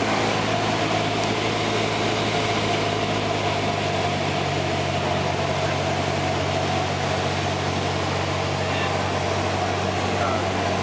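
Single-engine light aircraft's engine and propeller droning at a steady pitch in cruise, heard inside the cabin with a constant rushing of air over the airframe.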